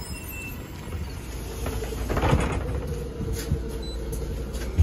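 Low rumble of a MAZ-203 city bus standing at a stop. About two seconds in there is a brief rustling noise, a steady hum comes in and stays, and a sharp knock comes at the end.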